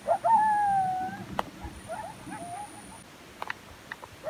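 An animal call: one pitched call about a second long, falling slightly, then several short chirps and a few sharp clicks.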